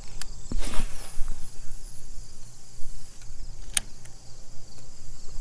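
A steady high insect buzz over a low rumble, with a brushing swish about a second in and a single sharp click a little before the end.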